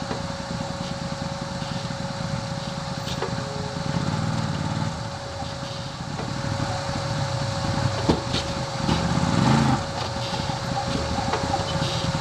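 Side-by-side UTV engine running as it drives, rising twice, around four seconds in and again around nine seconds in, with a steady tone underneath. A single sharp knock comes just after eight seconds.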